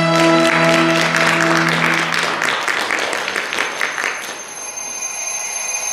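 Held chords of music fading out while an audience applauds; the clapping swells over the fading music and dies away about four seconds in.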